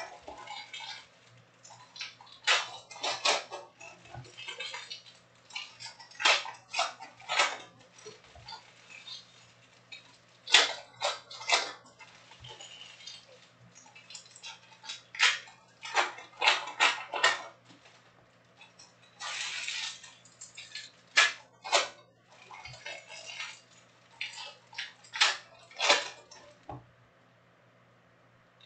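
Stiff chrome trading cards being handled and sorted: sharp clicks and snaps in quick clusters of two to four as cards are flicked through and tapped onto stacks, with a few short rustling swishes of cards sliding. A faint steady electrical hum lies underneath.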